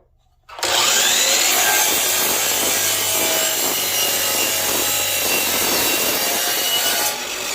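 Power saw starting up and cutting through an oak board, running steadily for about six seconds; near the end it is released and its pitch starts to fall as the blade winds down.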